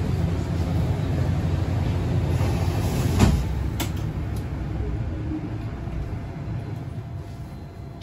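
Inside a city bus: the low rumble of the engine and drive fades steadily as the bus slows. A sharp knock comes about three seconds in, with a smaller click just after.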